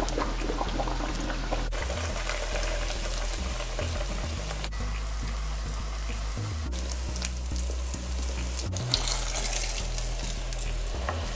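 Salt bake dough deep-frying in hot oil, sizzling and crackling steadily. Near the end the spoons knock a few times as the bake is turned over.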